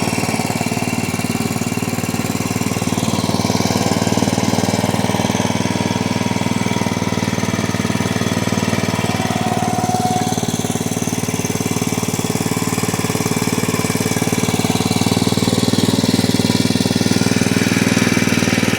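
A small engine running steadily under load, with an even low drone that rises slightly in level near the end.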